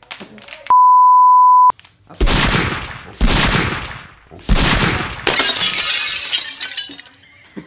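A one-second steady beep, then three loud crashes about a second apart, each fading quickly, and a longer, hissier shattering crash.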